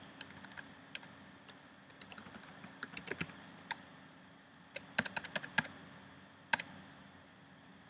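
Computer keyboard typing: short runs of key clicks, with a quicker run about five seconds in as text is deleted, and one last click shortly after.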